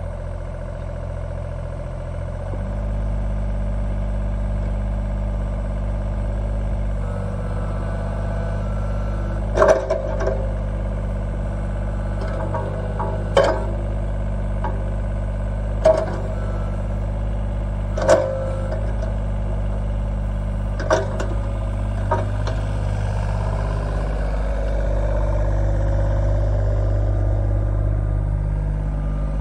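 John Deere 35G compact excavator's diesel engine running steadily, coming up in speed about two and a half seconds in as the hydraulics are worked. A handful of sharp clanks sound every few seconds through the middle as the boom, arm and bucket are moved.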